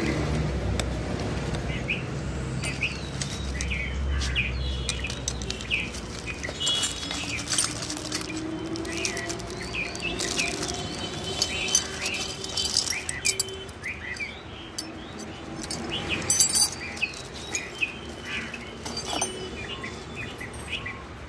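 Small birds chirping repeatedly, with scattered sharp clicks and rustling as hand tools and spare parts are handled; the handling noises are loudest a little past the middle.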